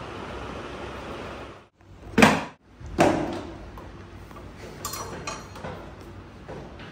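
Wooden apartment door being handled: a loud sharp knock about two seconds in and a second knock a second later that dies away, then faint light clicks a couple of seconds after.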